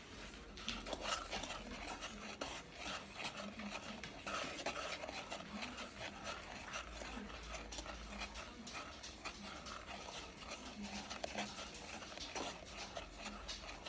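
A spoon stirring fudge mixture with melting butter in a saucepan, with many short scrapes and clicks against the pot.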